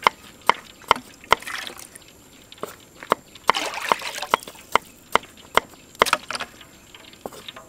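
Kitchen knife chopping white radish on a wooden chopping block: a string of sharp knocks of the blade hitting the wood, about two a second.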